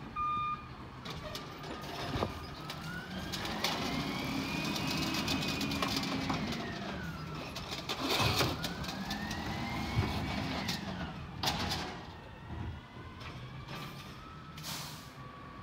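Garbage truck's diesel engine revving up and back down twice, the engine speed-up that drives the truck's hydraulics as it services a curbside cart. There are clanks and knocks, the sharpest about halfway through.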